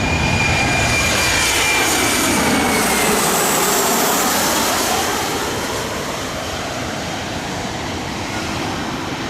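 Boeing 737 jet airliner passing close by, its turbofan engines running with a high whine that falls in pitch about three seconds in as it goes past; the sound eases off after about five seconds.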